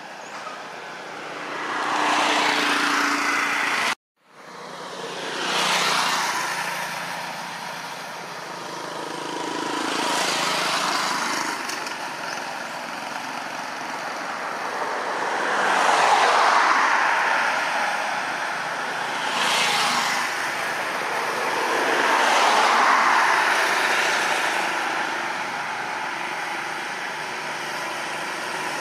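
Road traffic passing: one vehicle after another swells up and fades away over a few seconds each. The sound cuts out completely for a moment about four seconds in.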